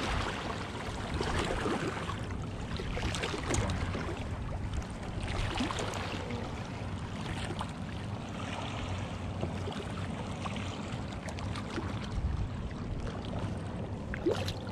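Wind on the microphone and water lapping against a plastic kayak hull, with scattered handling knocks; a small splash near the end as a redfish is let back into the water.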